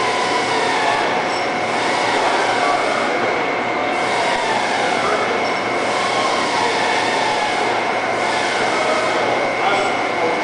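Cincinnati Gilbert Model J horizontal boring mill running steadily: a constant mechanical noise with a steady high whine through it.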